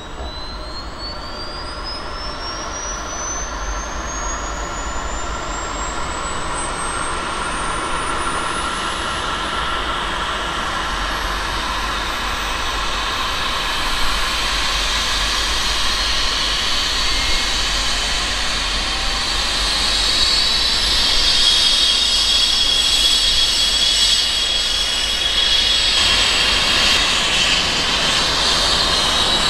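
Eurocopter EC135T3 helicopter starting up: the turbine whine of its Turbomeca Arrius turboshaft engine rises steadily in pitch over the first several seconds, and the sound grows louder as the engines come up to speed. A further layer of whine joins about twenty seconds in.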